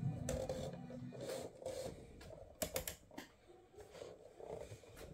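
Piano-key cassette control buttons on an AIWA CS-W660 boombox being pressed and released, giving a string of sharp mechanical clicks, with a quick cluster of several near the middle. A low hum stops about a second in.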